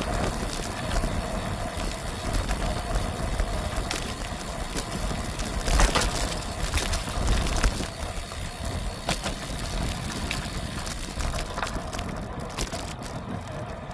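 Wind rushing over the microphone with a low, uneven rumble of tyres on the path while riding a bicycle, and a few sharp knocks from bumps, the loudest about six seconds in.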